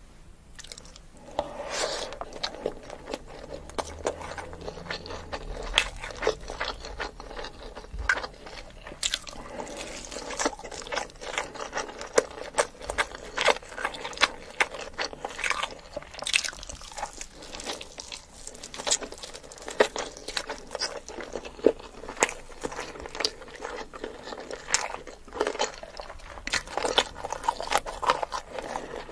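Close-miked eating sounds from a mouthful of chicken biryani eaten by hand: chewing and biting with a dense run of small wet clicks, smacks and crackles.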